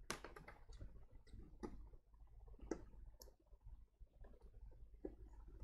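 Faint, irregular clicks and light knocks of cables and connectors being handled on a workbench as a power cord is hooked up.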